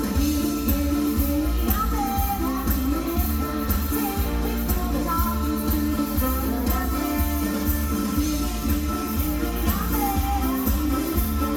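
Live band music with a singer, playing over a steady bass.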